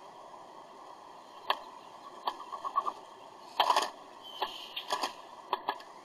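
Northern cardinal feeding on sunflower seeds on a feeder tray: scattered sharp clicks and taps of beak and seed, with a quick run of small ticks and a louder rattle a little past halfway, over a steady hiss.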